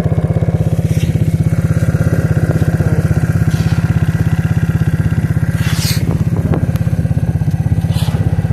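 Suzuki King Quad ATV's single-cylinder engine running steadily at idle with an even, gargling pulse. A brief scrape-like rustle cuts in about six seconds in.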